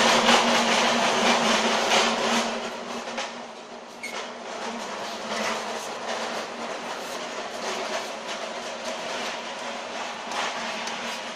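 Clatter and rustle of a folding bicycle being handled and unfolded on a foam packing sheet: many short clicks and knocks over a steady hum, loudest in the first two seconds.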